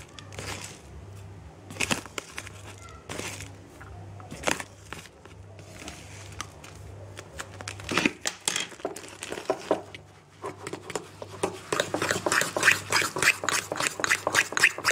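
Metal fork stirring and beating cake batter in a ceramic bowl. A few scattered clinks and scrapes come first, then about two-thirds of the way in a fast, steady run of tapping and scraping against the bowl.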